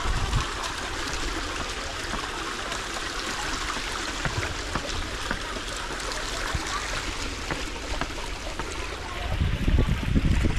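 Water running and trickling down a narrow stepped stone channel set in the middle of a staircase, a steady splashing flow. Near the end a low rumble of wind on the microphone comes in over it.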